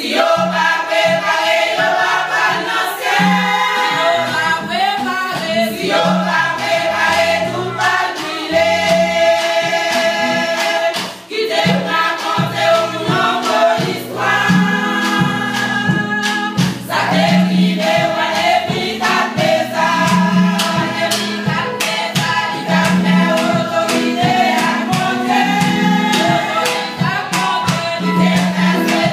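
Women's church choir singing together, holding long sustained notes, with a brief break between phrases about eleven seconds in.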